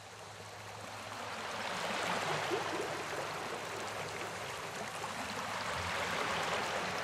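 Steady rushing sound of flowing water, fading in over the first two seconds and then holding level.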